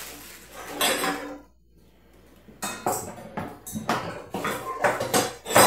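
Metal mixer attachments clinking and knocking as they are handled and fitted onto an Oster stand mixer's head, with a rustle of plastic wrapping about a second in. The knocks come thick and irregular in the second half, the loudest one near the end.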